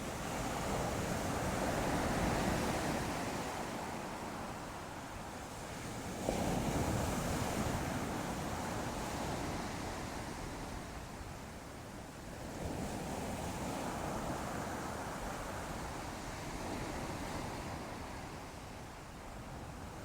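Ocean waves breaking and washing ashore in slow surges, a new wave rising every five or six seconds; one breaks with a sudden rush about six seconds in.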